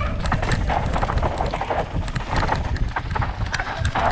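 Mountain bike clattering over a rough dirt trail: quick, irregular knocks and rattles from the tyres and bike on rocks and roots, over a steady low rumble of wind on the helmet-mounted microphone.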